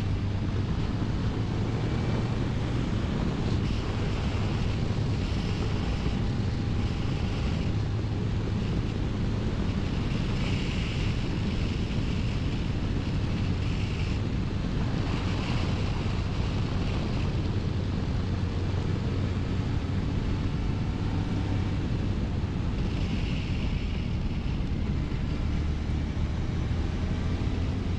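Steady wind noise on the microphone over the Honda CBR1100XX Blackbird's inline-four engine running at cruising speed.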